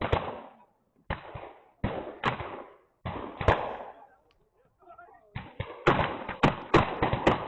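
Smoothbore pistols fired in turn at tiles, a shot every second or so, each trailing off in echo. There is a short lull, then a faster string of shots near the end.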